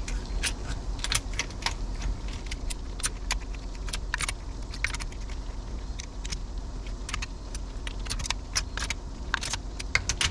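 Irregular light metallic clicks and clinks of hand tools being worked and handled, over a steady low hum.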